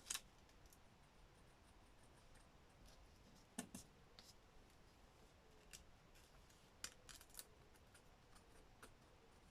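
Faint, scattered snips of scissors cutting paper, a few at a time with pauses between, against near silence.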